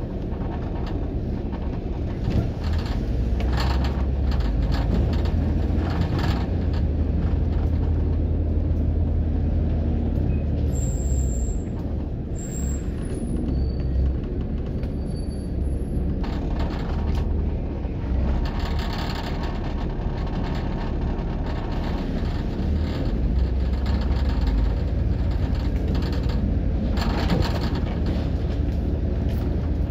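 Inside a moving bus: the engine's steady low drone with road and cabin noise rising and falling, and a few short high beeps near the middle.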